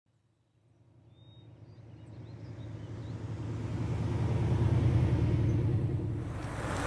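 A car driving on a road: a low, steady engine and road rumble that fades in from silence, grows louder, then eases slightly near the end.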